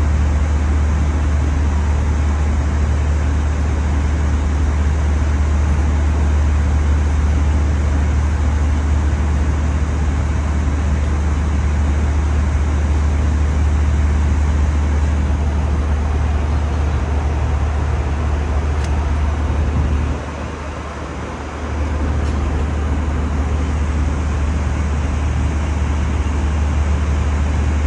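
Airliner cabin noise in flight: a loud, steady rushing drone with a strong low hum, which dips briefly about twenty seconds in and then returns.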